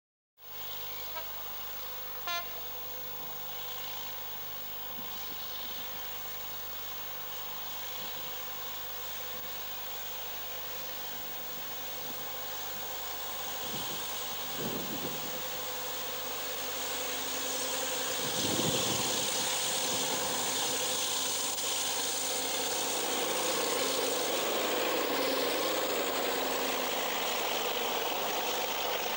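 FEVE metre-gauge diesel locomotive hauling a freight train, its engine running and growing steadily louder as it draws near, with the wagons rolling past at the end. There are two short sharp sounds about one and two seconds in.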